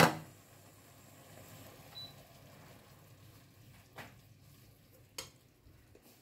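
A sharp clatter of kitchen utensils or dishes right at the start, then a few faint knocks as things are handled around the stove, over quiet room tone.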